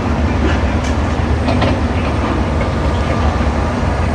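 Heavy diesel demolition machinery rumbling steadily, with a few sharp knocks and scrapes of debris between about one and two seconds in.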